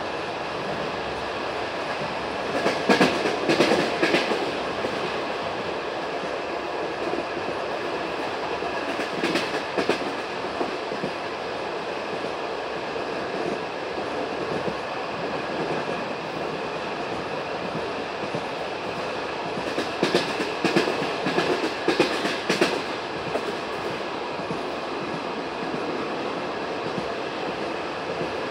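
Passenger train carriage rolling along the track with a steady rumble. Bursts of clickety-clack come as the wheels pass over rail joints: a few seconds in, again about ten seconds in, and a longer run about two-thirds of the way through.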